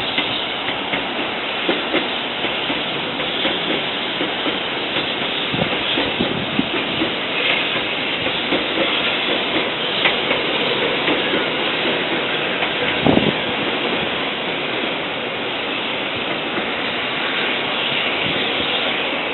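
Shinkansen 0 series train rolling out of the depot: a steady rumble and hiss of the moving train, with irregular wheel clicks over the track and one louder knock about two-thirds of the way through.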